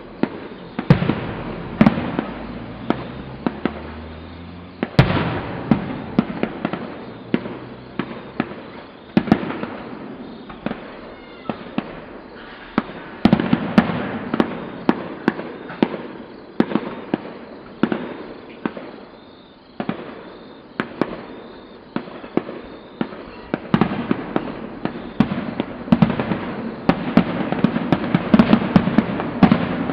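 Fireworks going off in a dense, irregular barrage of sharp bangs and crackling, with a short lull about two-thirds of the way through and the bangs coming thicker and louder near the end.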